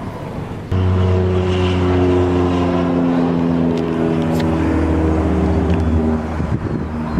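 A road vehicle's engine passing close by. A low hum with several overtones starts abruptly about a second in and slides slowly down in pitch for about five seconds before fading. Wind noise buffets the microphone around it.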